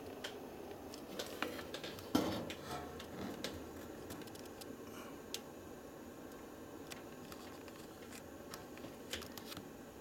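Faint steady low hum with scattered light clicks and rustles from a hand-held camera being moved and handled. The clicks bunch together in the first few seconds and again near the end, and the loudest comes about two seconds in.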